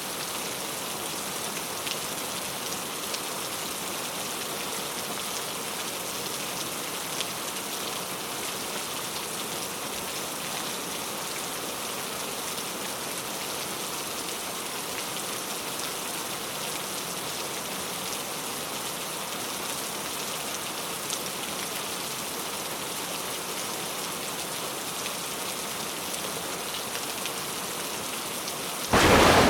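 Steady rain falling: an even hiss of drops with a few sharper ticks. Right at the end, a sudden loud clap of thunder breaks in.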